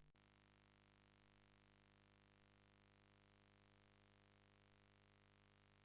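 Near silence: a faint steady hum of background or recorder noise, with one brief click right at the start.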